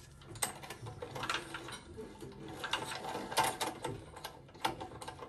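Old Tecumseh four-stroke engine turned over slowly by hand, giving irregular mechanical clicks and ratcheting as the crankshaft goes round. Its compression feels weak to the mechanic.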